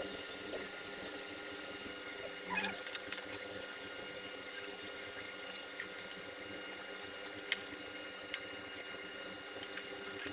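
Battered onion rings deep-frying in hot oil: a steady sizzle with scattered crackles and pops, over a steady high-pitched hum.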